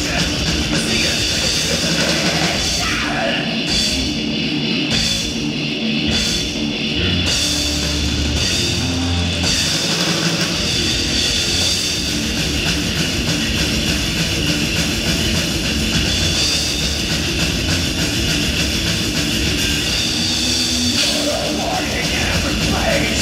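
Heavy metal band playing live, with drum kit and loud electric instruments, picked up by a camera microphone rather than the mixing desk, so the mix is rough and room-heavy. A few seconds in the music goes stop-start for a stretch before running on full again.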